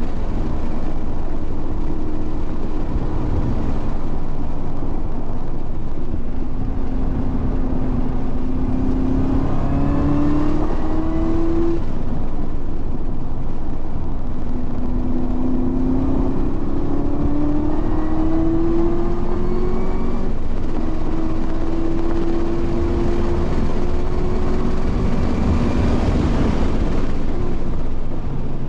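Car engine pulling hard at track pace, its note climbing in long rises that drop back at each gear change, over steady wind and tyre noise.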